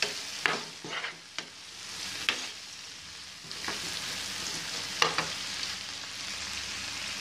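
Wooden spatula stirring a spiced tomato and onion masala frying in a non-stick pan: a steady low sizzle broken by about six sharp scrapes and knocks of the spatula against the pan, the loudest about five seconds in.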